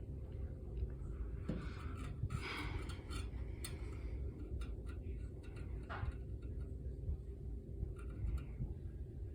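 Cooled air blowing steadily out of a home HVAC supply register, heard as a low rumble, with a few rustles and small clicks of handling about two seconds in and again near six seconds.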